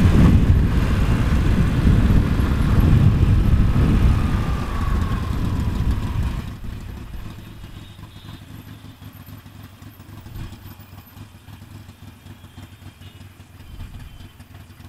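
Harley-Davidson V-twin motorcycle riding in traffic, loud, then the sound drops sharply about six seconds in as the bike slows to a stop and settles into a steady low idle.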